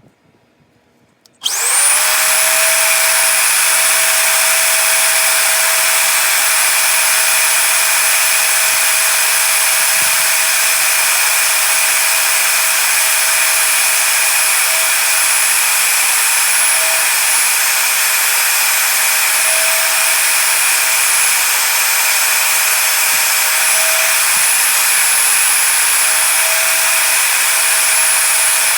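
An electric power tool motor switched on about a second and a half in. It spins up quickly to a steady high whine and keeps running at constant speed.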